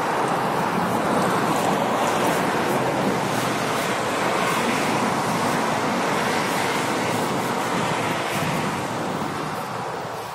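Road traffic noise: a steady rush of vehicles passing on the road, easing off near the end.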